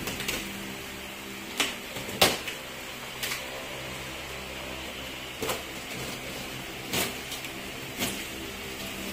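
A blade slitting packing tape on a cardboard shipping box and the box's cardboard flaps being pulled open, giving several short, sharp crackles a second or more apart. A steady hum runs underneath.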